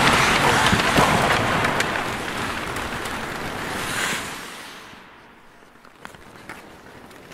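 Many hockey skate blades scraping and cutting across the ice as a pack of skaters rushes past, a dense hiss that swells once about four seconds in and then fades away, leaving a few faint knocks.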